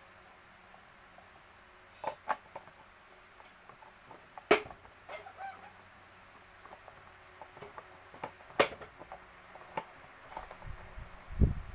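A steady high-pitched insect trill, with scattered sharp clicks and knocks over it; two knocks stand out as louder, one a little before the middle and one about three quarters of the way through.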